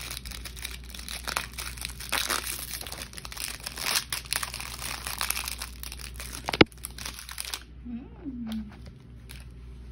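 A foil-lined plastic snack wrapper being torn open and handled, with dense crinkling and crackling and a sharp snap about six and a half seconds in. The crinkling stops about two seconds before the end.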